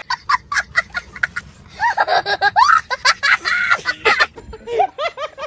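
A young boy laughing hard in high-pitched, cackling bursts that rise and fall in pitch.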